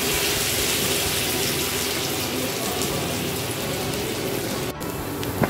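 Sliced onions and curry leaves sizzling steadily in hot oil in a kadai, just after going into the pan. The sizzle briefly drops out near the end.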